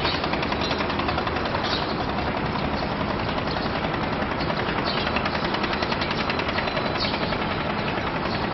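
Steady, fast mechanical rattling from construction machinery at work.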